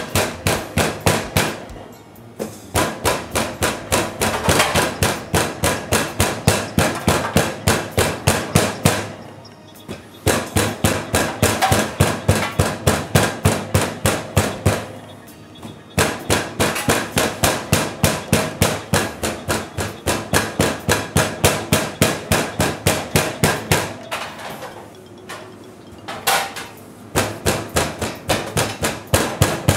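Flat metal meat pounder beating a breaded bone-in pork cutlet against a metal tray of breadcrumbs to flatten it. It strikes fast and repeatedly, about three to four blows a second, in runs broken by a few short pauses.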